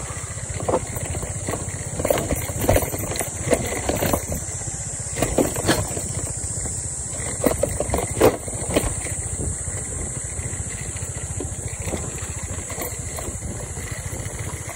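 SYM Woo 115 scooter's small single-cylinder engine running steadily as it is ridden slowly up a rough trail, with a run of knocks and rattles between about two and nine seconds in.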